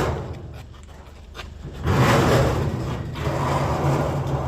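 A vehicle engine running steadily, coming in suddenly about two seconds in after a quieter stretch with a few light knocks.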